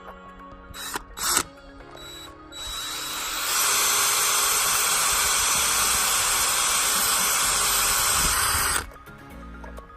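18-volt cordless drill given two short blips, then run steadily for about six seconds with its bit grinding into an iPhone, before cutting off suddenly. Background music plays underneath.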